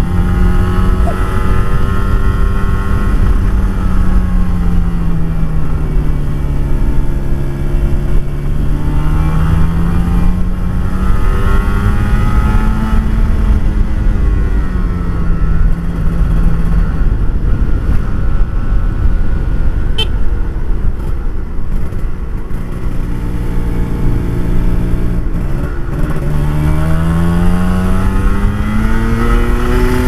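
Kawasaki Ninja RR two-stroke single-cylinder engine with an Eighty Racing aftermarket exhaust, running under way. Its note rises and falls several times as the revs change, drops back in the middle and climbs again near the end, over a steady low rumble.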